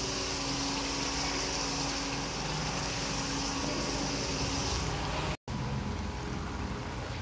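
Spinach and mutton frying in oil in a karahi, a steady sizzle while a spatula stirs it. A brief dropout comes about five seconds in, after which the stew simmers and bubbles.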